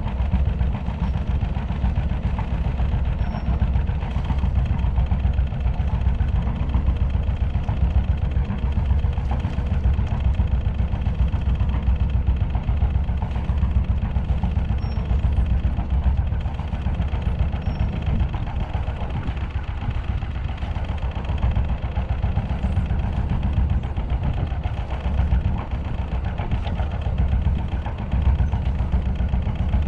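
A sailboat's inboard diesel engine running steadily as a deep, even rumble.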